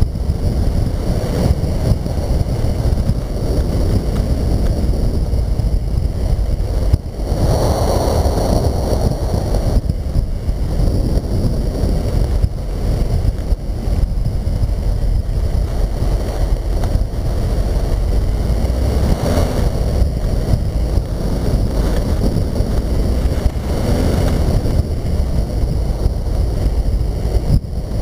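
Wind buffeting the microphone of a camera mounted outside a moving car, over the steady rumble of the car driving on a snow-covered road. A louder, brighter surge comes about eight seconds in.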